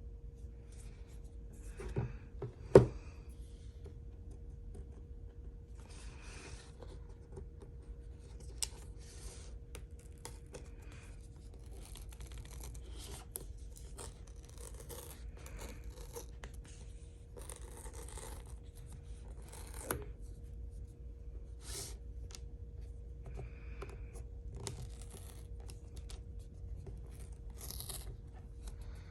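Packaging of an iPhone 14 Pro Max box being torn open and handled: scattered tearing and rustling scrapes, with two sharp knocks about two and three seconds in. A faint steady hum runs underneath.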